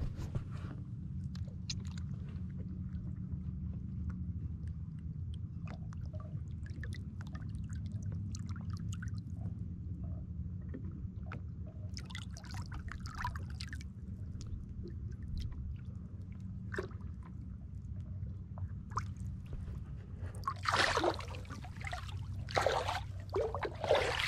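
Water sloshing and splashing against the boat's side as a striped bass is held in the water to revive it before release, ending in a couple of loud splashes as the fish kicks free. Underneath runs the steady low hum of the boat's idling engine.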